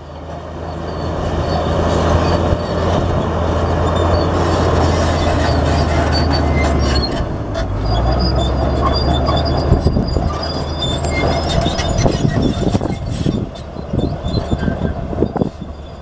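Komatsu D65P crawler bulldozer working: its diesel engine running steadily under load, with squealing and clanking from the steel tracks. The engine note drops about seven seconds in, and irregular clanks and knocks come thick and fast near the end.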